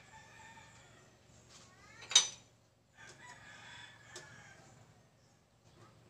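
A rooster crowing, in drawn-out calls. About two seconds in comes a single sharp metal clank, a ladle striking the metal wok.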